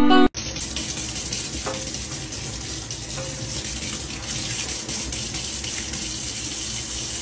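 A brief bit of music cuts off just after the start, then a steady rushing hiss of running water.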